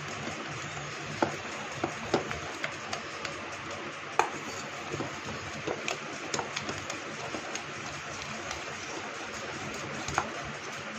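A spoon beating thick gram-flour (besan) batter in a stainless steel bowl to work out the lumps: a steady stirring noise with irregular clinks of the spoon against the bowl.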